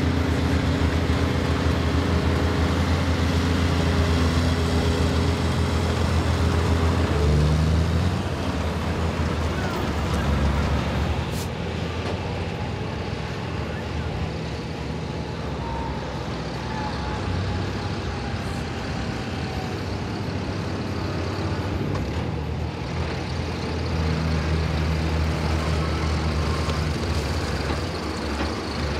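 Large farm tractors' diesel engines running as they drive past one after another. The engines are loudest in the first few seconds and again near the end, and one engine's pitch rises briefly about seven seconds in.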